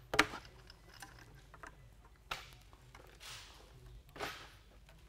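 Flathead screwdriver turning a stainless steel one-way security screw into wood, by hand: a sharp click from the blade in the screw head, then several short scraping, grinding strokes about a second apart as the screw is worked in against stiff resistance.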